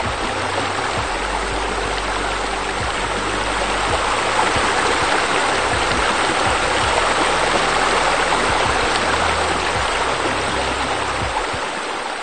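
Steady rushing, bubbling water that swells toward the middle and fades near the end, with low sustained notes underneath.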